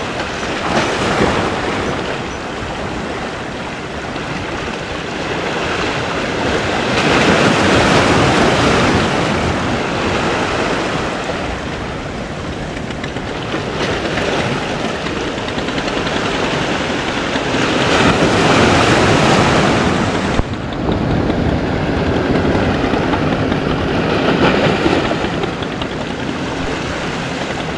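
Sea waves washing against breakwater rocks, a steady rushing that swells and eases every few seconds, with wind on the microphone. The sound briefly drops away about twenty seconds in.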